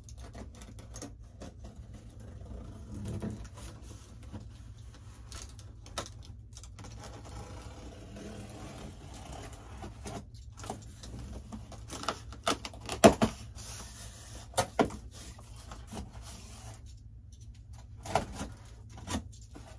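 A large cardboard shipping box being cut and opened: a knife slitting packing tape, cardboard scraping and rustling, and the flaps being handled, with a cluster of sharp knocks and thumps past the middle. A steady low hum runs underneath.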